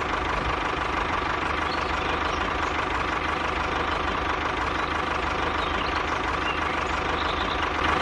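Motor of a homemade miniature tractor running steadily, a continuous engine-like drone with a constant mid-pitched whine.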